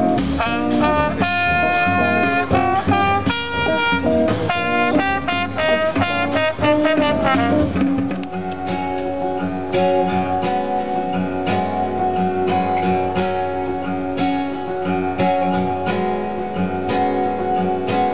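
Instrumental acoustic guitar music with no voice: a run of quick single picked notes for the first eight seconds or so, then steady strummed chords leading into a song.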